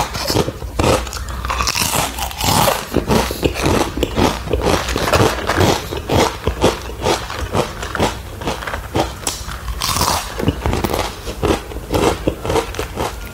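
Crunchy crisp-cut fries being bitten and chewed close to a clip-on microphone: a quick, continuous run of sharp crackling crunches.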